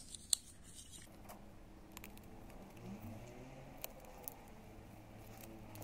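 Small plastic toy pieces, a luggage tag and its plastic loop, handled in the fingers: a few faint light clicks over a low steady hum.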